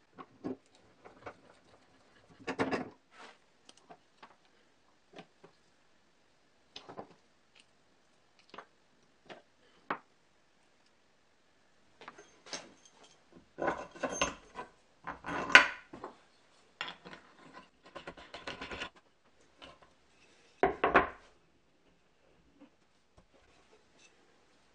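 Wooden clamp blocks, bolts and a plywood flange being handled on a plywood bandsaw wheel: scattered light wooden knocks and clacks with some rubbing, busier through the middle and with a louder clatter near the end.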